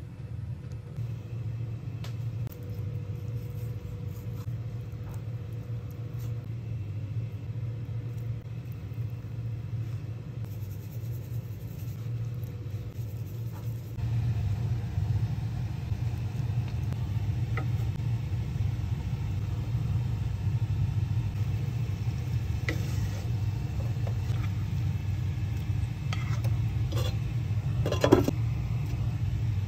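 A steady low kitchen rumble with scattered light clinks of utensils on cookware. Near the end, a glass lid knocks down onto the frying pan, the loudest sound.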